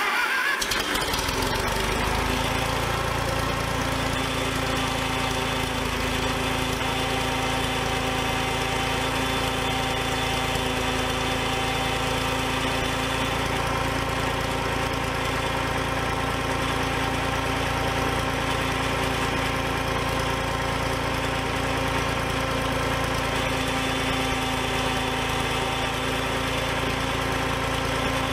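The carbureted engine of an Oliver OC46 crawler loader idling steadily, freshly started. Its speed settles in the first couple of seconds. The carburetor has just been cleaned and fitted with a new bowl gasket, and it is being adjusted while the engine runs.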